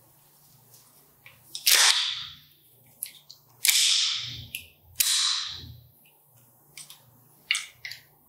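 CO2 hi-capa airsoft pistol giving three sharp hissing bursts, about a second apart, each fading within a second. Several small mechanical clicks follow near the end as the pistol's safety is worked.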